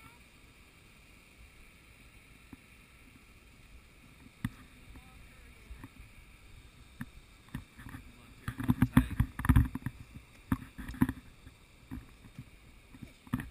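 Wooden elephant-ride seat creaking and knocking as the elephant walks, with a run of louder, irregular knocks and thumps a little past the middle.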